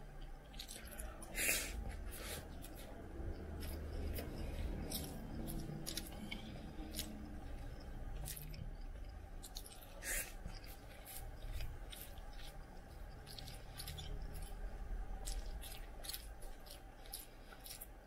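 A metal spoon scraping and clinking against a ceramic plate as it scoops up rice, with sharp clicks throughout and two louder clinks, one about a second and a half in and one near the middle. A soft, uneven low sound of chewing runs underneath.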